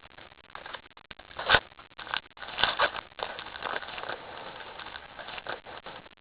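Foil trading-card pack crinkling and cards rustling in the hands as the next pack is opened. There is a sharp snap about one and a half seconds in and a burst of crinkling shortly after.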